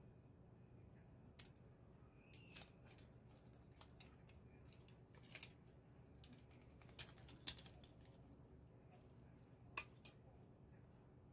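Stainless steel link bracelet and clasp of a Nixon The Unit SS watch clicking and clinking as it is handled: about eight short sharp clicks scattered over a low hiss.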